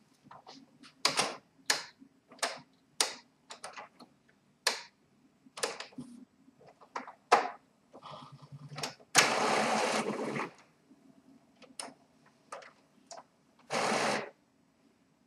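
Epson WorkForce WF-3540 inkjet printer running its initial ink-charging cycle: a string of irregular mechanical clicks and clacks, with a longer stretch of mechanical noise about nine seconds in and a shorter one near the end as the print-head carriage moves across and back.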